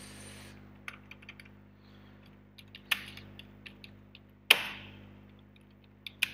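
Keys clicking on a computer keyboard as a short line of text is typed: slow, irregular keystrokes in small clusters, with one sharper, louder key strike about four and a half seconds in.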